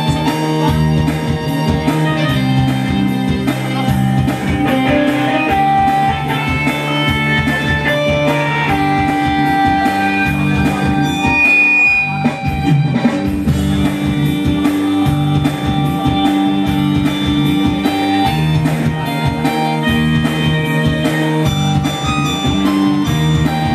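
Live stage band music: an electronic keyboard and a guitar-like melody over a steady drum beat.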